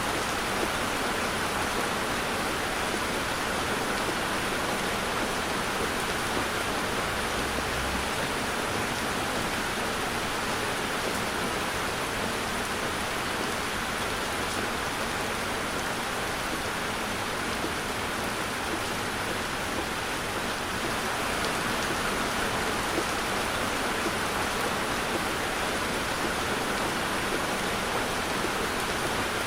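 Heavy rain falling steadily on a car, heard as a constant, even hiss.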